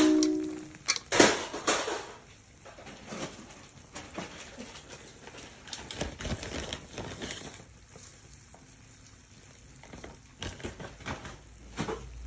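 Soft patter and scattered light taps as chopped pistachios, almonds and grated coconut are sprinkled over egg halwa in a steel tray.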